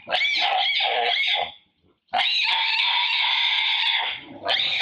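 Female macaque screaming in fear as a bigger male tries to take her mango. First come several short shrill screams, then after a brief pause one long scream of about two seconds, and the screaming starts again near the end.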